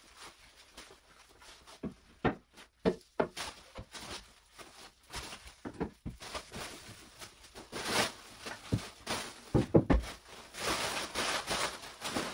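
Birch plywood panels knocking and scraping as they are handled and leaned against a wall, with footsteps on a tiled floor and the sharpest knocks about ten seconds in. Plastic wrapping rustles near the end as it is gathered up.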